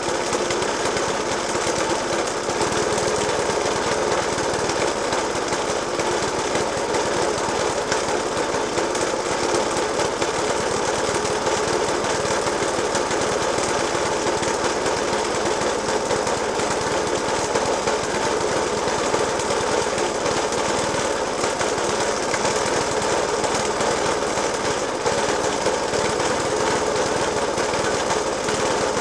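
Suffolk Punch 30S petrol lawnmower engine idling roughly with heavy banging. The banging persists despite a new spark plug, a decoke and a cleaned carburettor.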